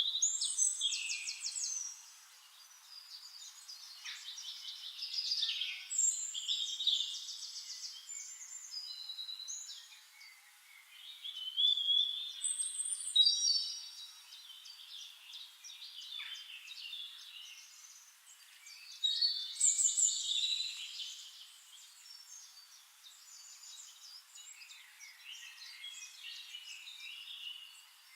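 Several songbirds singing over one another: rapid trills, buzzy rattles and short whistled phrases, swelling loudest in a few bursts.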